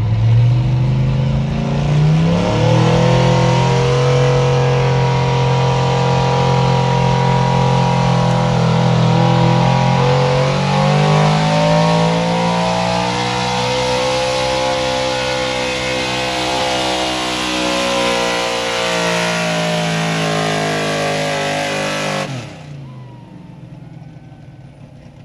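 Ford F-250 4x4 pickup engine under full load pulling a weight-transfer sled: it revs up in the first couple of seconds, then holds high revs with the pitch slowly wavering over a loud rushing noise. About 22 seconds in the throttle is let off and the engine drops abruptly to a much quieter idle, the end of the pull.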